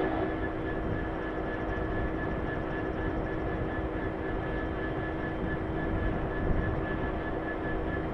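Class 66 diesel-electric locomotive idling at a standstill, its EMD two-stroke V12 giving a steady drone with a thin constant whine over it.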